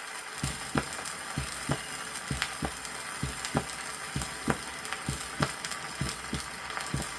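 Normal human heart sounds heard at the cardiac apex: paired low thumps, the first and second heart sounds (lub-dub), about once a second, starting about half a second in. Steady hiss and crackle of vinyl record surface noise underneath.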